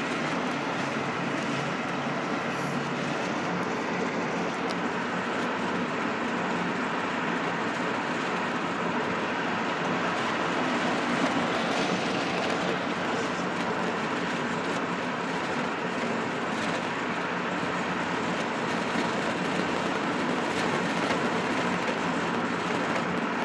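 Steady road noise of a car driving at freeway speed: tyre and wind noise heard from inside the car.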